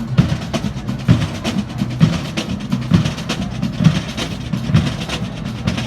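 Marching band drumline playing a marching cadence: quick snare strokes over a strong bass drum beat about once a second.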